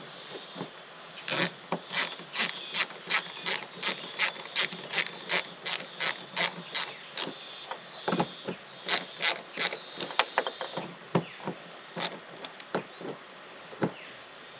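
Ratcheting hand screwdriver clicking as it drives screws in. The clicks come evenly, about three a second, for several seconds, then turn slower and irregular from about eight seconds in.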